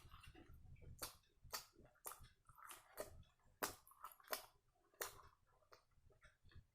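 A person chewing soft, wet food with mouth smacks and sharp clicks, about seven at irregular intervals, each short and quiet.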